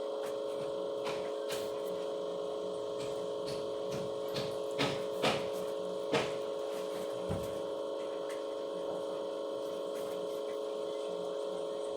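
A steady electrical hum runs throughout. About five to six seconds in there are several sharp clicks, with a few fainter ones before and after.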